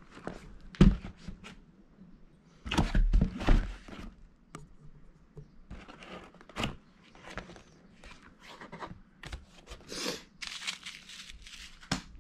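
A cardboard product box being handled and opened by hand: irregular knocks, scrapes and rubbing of cardboard, with a sharp knock about a second in. Around ten seconds in come hissy rustles of paper and plastic wrap.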